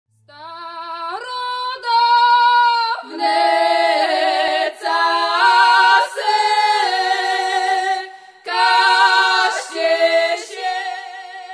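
Women's voices singing unaccompanied: one voice starts the song and others join in harmony about three seconds in, with a brief breath break later on.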